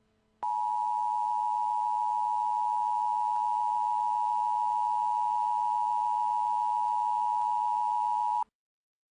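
Emergency Alert System two-tone attention signal: two steady tones sounding together (853 and 960 Hz), held at an even level for about eight seconds, then cut off abruptly. It is the alert that precedes a tornado warning broadcast.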